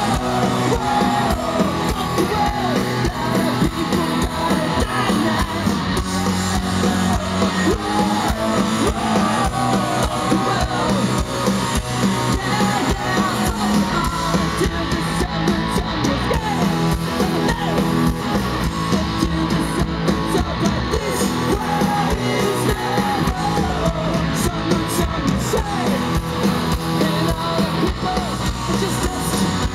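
Punk rock band playing live: electric guitars, bass guitar and drum kit with shouted singing over them.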